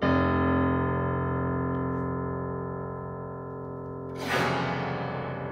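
Prepared Disklavier grand piano: a loud, low chord of many notes struck at once, ringing on and slowly fading. About four seconds in, a second, brighter and noisier attack rings out over it.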